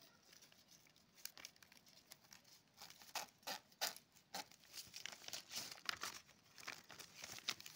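Thin black plastic bag crinkling and rustling as it is handled, a run of faint short crackles that grows busier after the first couple of seconds.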